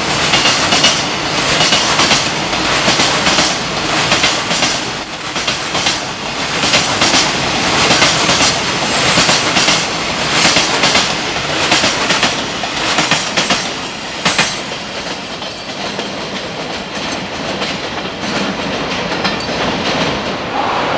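Container freight train passing at speed, its wagon wheels clattering over rail joints in a quick, uneven run of clicks. The clatter ends about fourteen seconds in, leaving a softer steady rumble.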